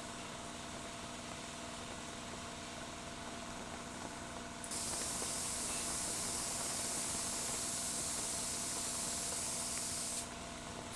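Compressed-air paint spray gun hissing as primer is sprayed, in a trigger pull that starts about five seconds in and stops about a second before the end, over a steady background hum.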